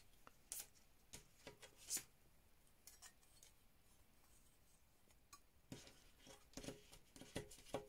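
Faint, scattered light clicks and taps of thin metal cutting dies being handled and laid on a table, coming more often near the end.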